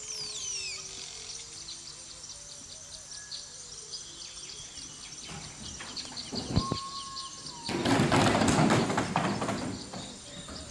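Tropical forest ambience: a steady high insect drone with scattered bird chirps, opening with a falling whistled bird call. A little past the middle comes a brief steady whistle-like tone, then about two seconds of loud rough noise full of rapid knocks.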